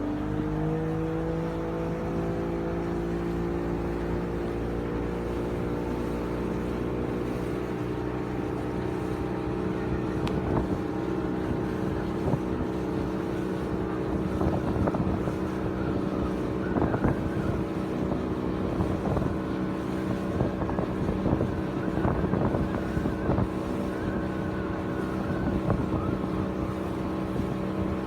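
Boat engine running under way, its pitch climbing briefly as it speeds up near the start and then holding steady, with water splashing and slapping against the hull from about a third of the way in.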